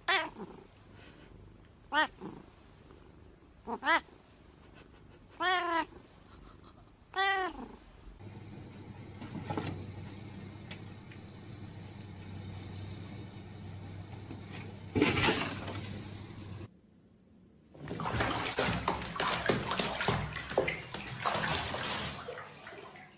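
A domestic cat meowing five times, about two seconds apart, each call bending up and down in pitch. Then a steady rushing noise with one loud burst about fifteen seconds in, and near the end a dense rushing, water-like noise.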